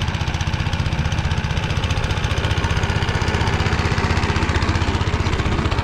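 Motor Sich walk-behind tractor's engine running steadily with an even, fast beat, driving a rotary tiller through the soil.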